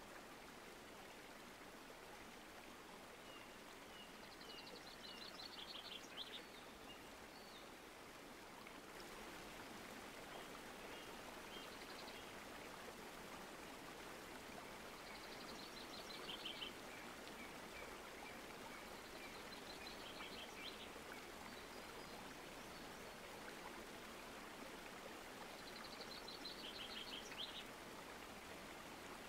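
Shallow creek trickling in a steady faint hiss. Over it a small bird sings a short, rapid high trill about five times, every few seconds.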